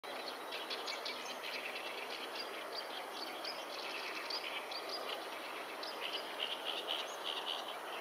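Many small songbirds chirping and twittering in a dawn chorus, with short high notes over a steady hiss of background noise, busier and louder from about six seconds in.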